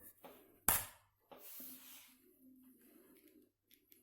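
Spring-loaded wire-cutter pliers of a Victorinox RangerGrip 74 pocket knife snapping open when the release lever is pulled back: one sharp metallic click a little under a second in, then a short rustle of the knife being handled.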